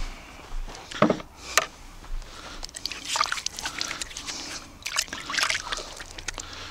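Water sloshing and dripping as wet hands work over a small bucket, with a few sharp knocks and rustles, the loudest about a second in and again around three and five seconds.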